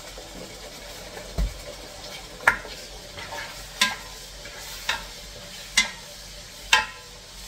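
Wooden spoon stirring tomatoes and onions frying in a pot, with a steady low sizzle. The spoon knocks sharply against the pot about once a second, six times in all.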